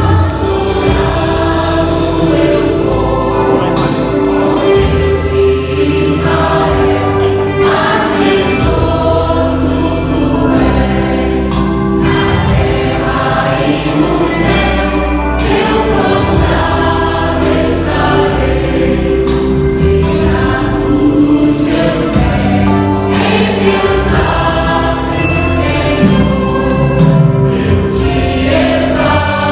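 A gospel vocal group singing a Christian worship song in choir harmony over instrumental accompaniment with a steady beat.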